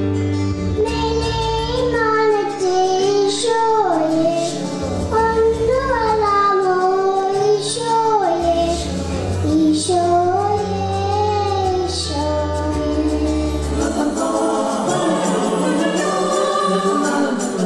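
A young girl singing a song into a stage microphone over a karaoke backing track with a steady bass line. About 14 seconds in her voice drops out and the backing track turns fuller and denser.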